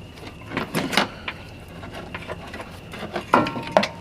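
Metal parts and hand tools clinking and knocking during brake caliper work: a few sharp knocks about a second in, then more near the end with a brief metallic ring, over a steady faint hum.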